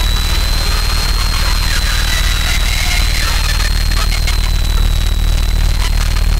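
Harsh noise electronics: a loud, dense wall of hiss and static over a heavy low rumble, with a thin high whistle held steady through it and crackles scattered on top.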